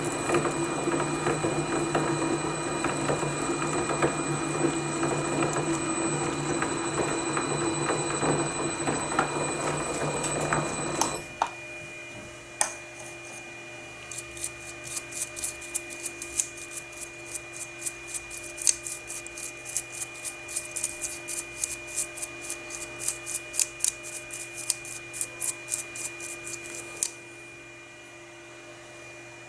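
Holbrook C8 lathe running steadily with a constant whine while taking thread-cutting passes, switching off abruptly about eleven seconds in. A faint steady hum is left, then a run of light regular clicks, about three a second, for some thirteen seconds.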